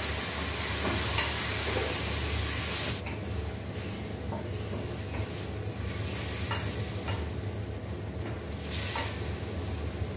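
Raw chicken pieces sizzling in a stainless steel wok, stirred with a spatula that scrapes and taps the pan now and then. The sizzle is loudest for the first three seconds, then settles to a quieter hiss.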